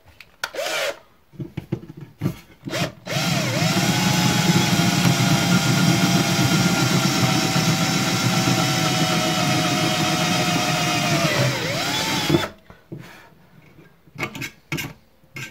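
Cordless drill with a 5 mm bit opening out a pilot hole in sheet metal: a few short trigger blips, then a steady run of about nine seconds with the motor whine spinning up at the start, dipping slightly near the end and stopping suddenly, followed by a couple of light knocks.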